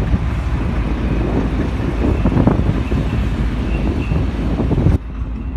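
Truck engine running with a steady low rumble, mixed with wind on the microphone; the loud noise cuts off abruptly about five seconds in.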